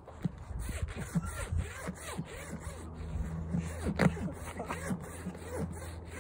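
A horse mouthing and nibbling at the front of a zip-up hoodie: irregular rustling of fabric with clicks and scrapes from the zipper.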